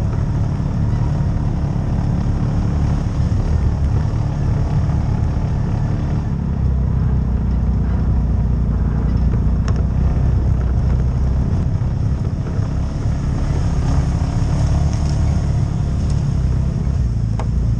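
CFMOTO UFORCE side-by-side driving along a gravel and dirt trail: the engine runs steadily under a low drone, its tone shifting about six seconds in. A couple of sharp knocks come near the middle and near the end.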